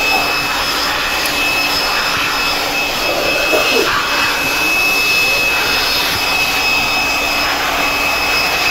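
A vacuum cleaner running steadily with a high whine as it sucks dust out of a computer's CPU heatsink fan.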